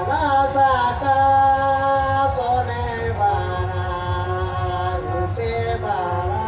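Music: a sung melody of long held notes over a steady low drone.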